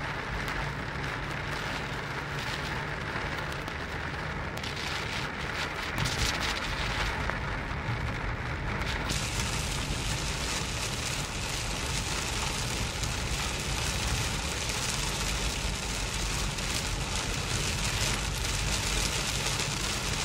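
Heavy rain pelting a moving car's windshield and roof, heard from inside the cabin over the tyre and road noise. The downpour gets heavier about nine seconds in.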